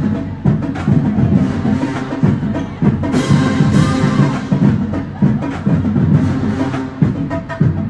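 Loud, drum-heavy music: a fast pattern of drum hits and sharp wood-block-like clicks, with brass in the background.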